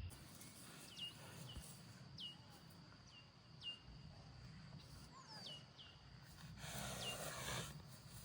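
A bird giving short, high chirps that slide downward in pitch, about one a second, some in quick pairs. A short rustle of noise comes near the end.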